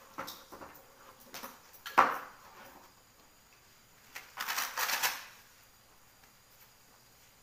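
Vital-signs equipment being handled: a few light clicks, then a sharp knock about two seconds in, followed by a rustling, rasping noise lasting about a second.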